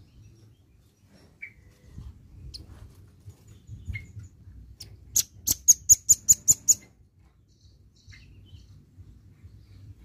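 Velvet-fronted nuthatch calling: a few faint single chirps, then about five seconds in a fast, high trill of around nine sharp notes lasting under two seconds.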